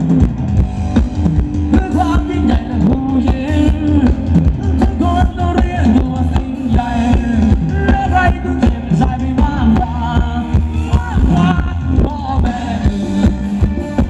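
Live band playing upbeat Thai ramwong dance music, a steady drum-kit beat under a sung melody.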